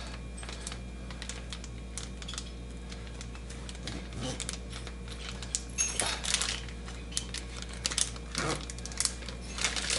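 Plastic Ziploc bag being pressed shut along its zipper seal and handled, giving small scattered clicks and crinkles that grow busier in the second half, over a steady low hum.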